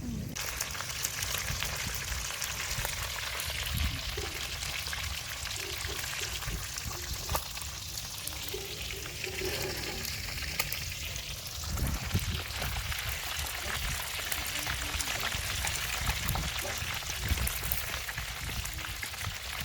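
Chicken thighs frying in hot oil: a steady sizzle with many small crackles and pops.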